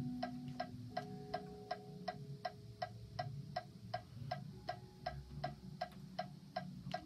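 Metronome clicking at a steady practice tempo, about three clicks a second, with faint held tones beneath.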